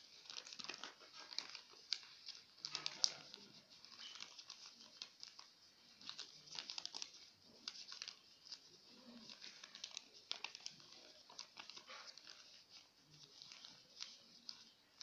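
Small sheet of lined notebook paper rustling and crinkling as it is folded and creased by hand, a run of soft irregular crackles and clicks.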